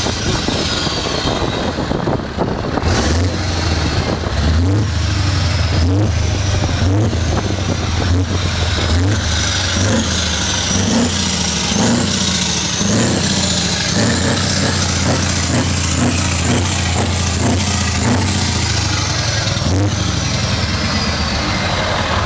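Scania R500 Topline's V8 diesel running, with its note rising in short revs again and again through the middle.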